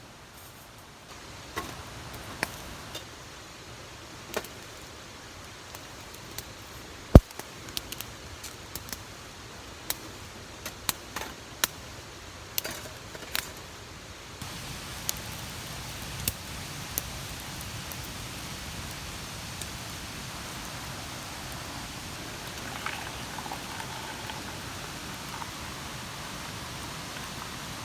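Wood campfire crackling: irregular sharp pops and snaps over a steady hiss. The pops thin out a little past halfway as the hiss grows louder.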